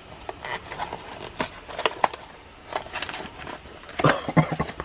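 A cardboard card box being handled and opened by hand: irregular crinkling and clicks of the paperboard flap and tabs, with a few sharper taps about halfway through and near the end.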